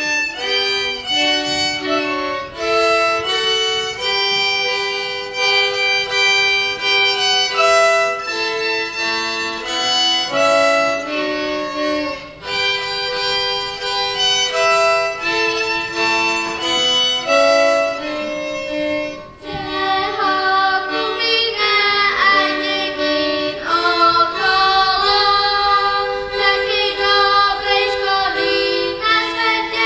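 Violin playing a melody, with lower sustained notes underneath. About twenty seconds in, after a brief drop, it moves into a higher part with wide vibrato.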